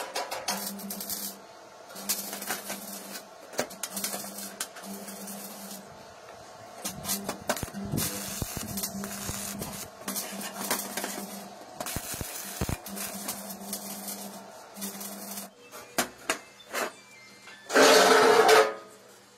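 Stick welding: the arc crackles in short spells over a steady electrical hum as a bolt is welded to a steel fitting. About 18 s in, a dog barks loudly.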